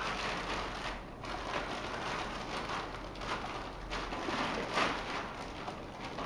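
A clear plastic bag crinkling and rustling in irregular bursts as a camera tripod is pulled out of it by hand.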